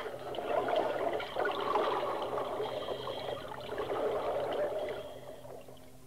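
Tropical forest ambience from a sound-effects recording: a steady wash of trickling water with thin high calls over it, fading out about five seconds in to tape hiss and a low hum.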